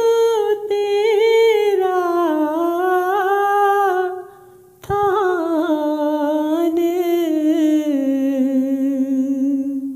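A single voice singing a shabad hymn without accompaniment, drawing out long wavering notes with no clear words. It sings two long phrases with a brief breath about four and a half seconds in.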